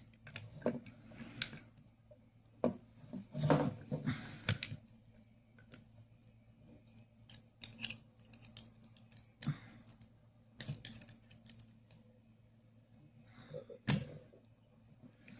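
Small metal clicks, scrapes and rattles of an ignition lock cylinder, key inserted, being turned and worked into the steering lock housing. They come irregularly, with a few sharper knocks about two-thirds of the way through and near the end.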